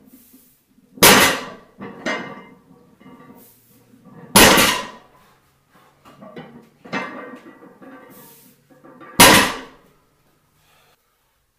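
Heavily loaded barbell with metal plates set down on a garage floor during a set of conventional deadlifts: three loud clanging thuds, about a second in, near the middle and near the end, with softer plate rattles between them.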